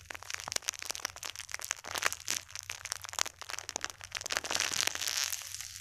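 Panda bun foam squishy toy being squeezed and handled close to the microphone: a dense, irregular run of crackles and crinkles.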